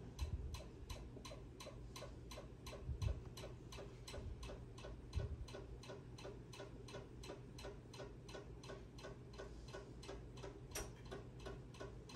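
Steady, rapid, even ticking, about four ticks a second, with a couple of faint low thumps partway through.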